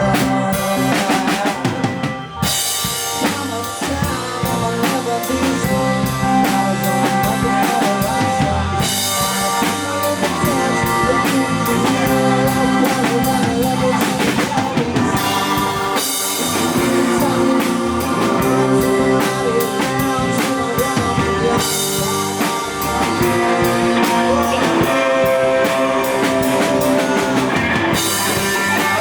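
Live rock band playing an instrumental passage, with a full drum kit (kick, snare with rimshots, cymbals) over bass and guitar. The cymbal wash drops out briefly a few times as the drummer changes pattern.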